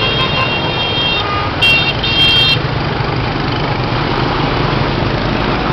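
Steady road traffic noise with a low engine rumble, while a vehicle horn honks repeatedly over the first two and a half seconds, loudest in two short blasts near the middle.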